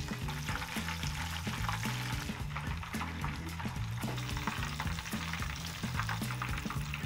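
Batter-coated shrimp deep-frying in oil at about 160 °C, a dense, irregular crackle of sizzling pops, stirred now and then with metal tongs.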